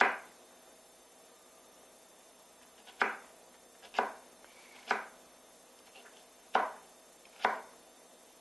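Chef's knife chopping carrot on a wooden cutting board, dicing it into small cubes: six sharp knocks of the blade, the first one alone and the rest coming about a second apart from three seconds in.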